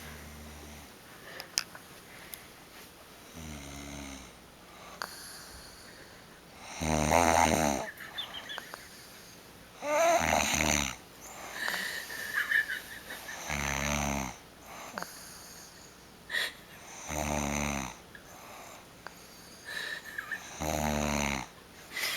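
A woman snoring in her sleep: seven snores, one about every three and a half seconds, the loudest near the middle.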